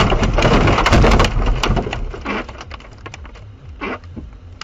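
A car crashing into trees: heavy crunching and scraping impacts for the first second or so. These die down to scattered knocks and rattles as debris settles.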